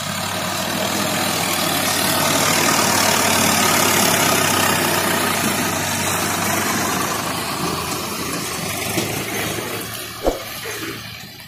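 Swaraj 744 FE tractor's diesel engine pulling a heavily loaded sugarcane trailer, growing louder as it passes close by, then fading as it moves away.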